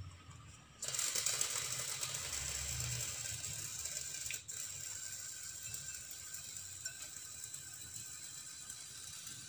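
Wire whisk beating an egg mixture in a glass bowl, its tines rattling against the glass in a fast, continuous clatter that starts suddenly about a second in.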